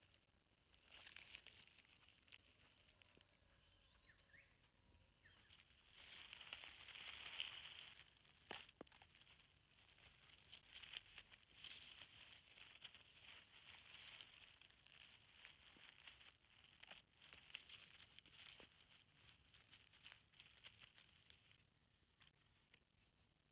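Faint rustling and crackling of dry leaf litter and twigs under a hand picking wild mushrooms from the forest floor, with scattered small snaps. It is loudest from about six to eight seconds in.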